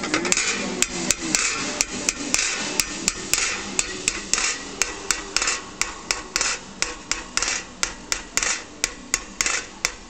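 Small hand hammer tapping on a metal plate, chasing a raised design into it, in an even rhythm of about three sharp strikes a second.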